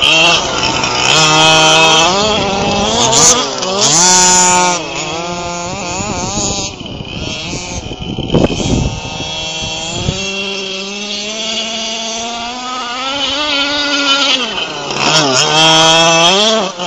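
Small two-stroke gasoline engines of 1/5-scale RC cars racing, revving up and down with the throttle. They are loud as a car passes close about the first few seconds in and again near the end, and more distant in between.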